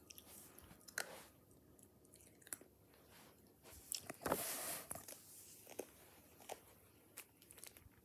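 A piece of ice being bitten and chewed, with scattered sharp crunches and one longer, louder crunch a little past the middle.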